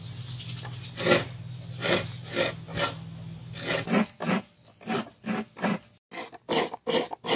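Half a coconut scraped in repeated rasping strokes against the serrated metal blade of a wooden coconut grater, shredding the white meat. The strokes come faster from about four seconds in.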